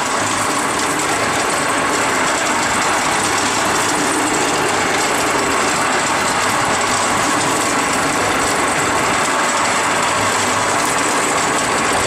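Steady noise of running machinery: an even hiss with a faint high-pitched whine on top.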